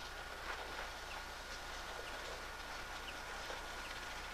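Faint exhaust beats of Isle of Man Railway No 4 Loch, a Beyer, Peacock 2-4-0 tank engine, as it steams away up the line, with birds chirping over a steady thin hum.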